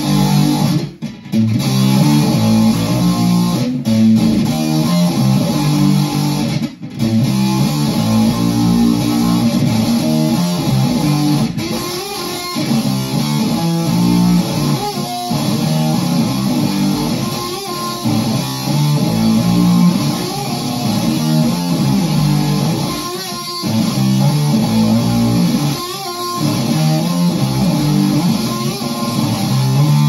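Electric guitar, an Epiphone Les Paul Custom with Gibson '57 pickups, played through a QCD Supa-Fuzz (a Univox Super Fuzz-style octave fuzz pedal) into a Marshall Bluesbreaker JTM45 amp, playing distorted rock riffs. There are several brief stops between phrases.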